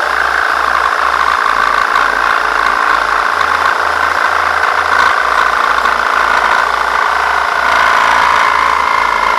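Electric drill driving a reciprocating jigsaw adapter, its blade sawing through a thin metal sheet: a steady, loud motor whine with the rattle of the blade chattering against the metal.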